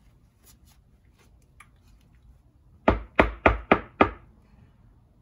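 Five sharp knocks in quick succession, about three a second, starting about three seconds in: the shock's damper shaft and piston being rapped down hard to clear old oil out of the little openings in the piston.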